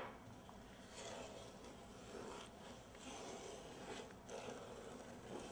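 Faint, irregular scraping and swishing of a utensil stirring granulated sugar, corn syrup and water together in a pan for candy.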